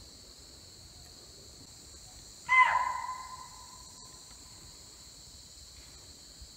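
One sharp, shrill animal alarm call about two and a half seconds in, fading over about a second, over a steady high drone of forest insects. Calls like this from deer and langurs are the sign of a tiger moving nearby.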